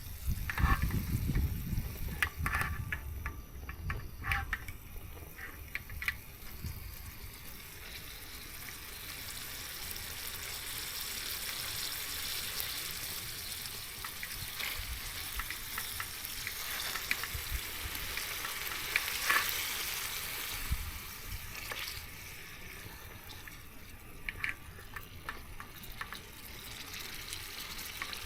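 Steady hiss of rain falling, swelling through the middle, with a few light taps and clicks in the first few seconds.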